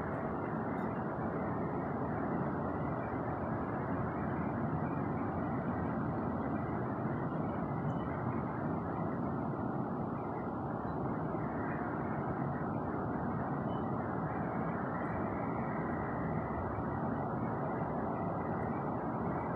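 A steady blowing, rumbling drone coming from the sky, like a huge furnace blower running; its source is unidentified.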